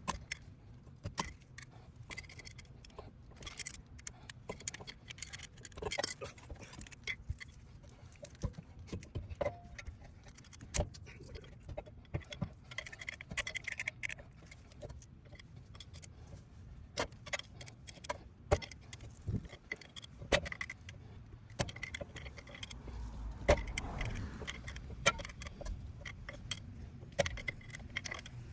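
Irregular metallic clinks and clicks of hand tools on a rear brake caliper, as an adjustable pin wrench turns the caliper piston back in. A low rumble comes in about three quarters of the way through.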